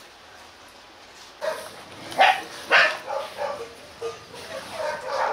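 A dog's short barks and yips, an irregular string of them starting about a second and a half in, the loudest two just after two seconds.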